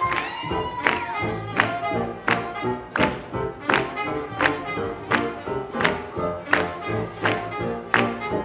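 Live swing band playing an up-tempo tune, with horns over guitar, double bass and drums keeping a steady beat. A held note slides down in pitch about a second in.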